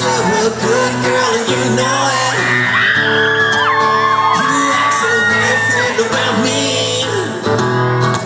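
Live solo acoustic guitar strummed with a male voice singing, in a large hall. In the middle, several high overlapping whoops and screams from the crowd rise above the music.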